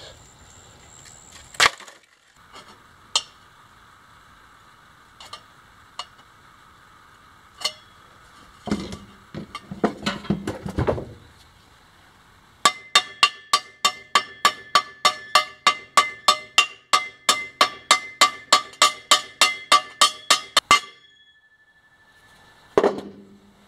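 A hammer repeatedly striking a thin metal tube, about four quick blows a second for some eight seconds in the second half, each blow leaving the tube ringing.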